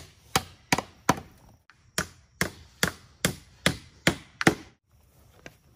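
A hammer striking a wooden fence board in a quick, even run of about eleven blows, roughly two and a half a second, stopping shortly before the end.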